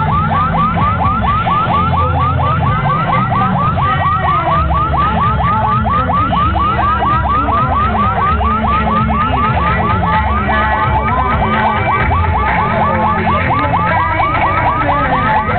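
Background electronic music with a fast, evenly repeating rising siren-like whoop, about four or five a second, over a steady bass line.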